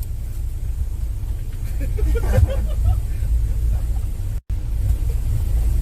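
Steady low road rumble inside a moving RV, with faint voices in the background. The sound drops out for an instant about four and a half seconds in.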